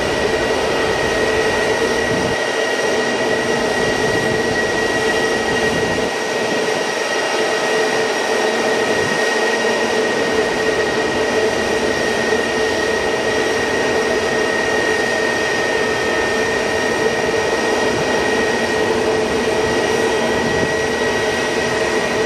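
Jet airliner engines running steadily, a loud even rush with a constant high whine and a lower hum, holding the same pitch throughout.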